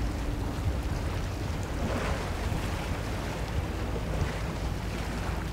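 Wind buffeting the microphone over choppy harbour water, with a low steady hum of boat engines underneath.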